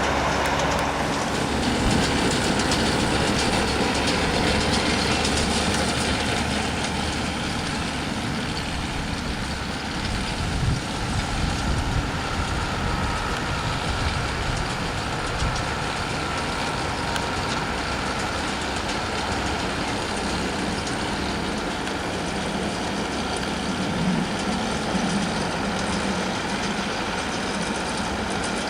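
An engine running steadily under a broad wash of noise.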